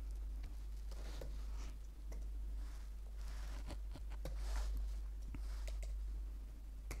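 Faint computer-keyboard keystrokes as text is typed: a dozen or so irregular, widely spaced clicks over a low steady hum.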